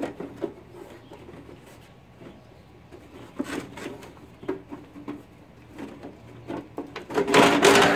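Metal side cover of a Hypertherm Powermax 45 plasma cutter being worked loose by hand: scattered light knocks, rubbing and faint squeaks, then a loud scrape near the end as the cover comes free.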